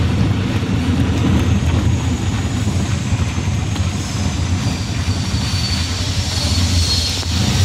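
Auto-rickshaw engine running steadily as the three-wheeler drives along, heard from inside its open-sided cabin.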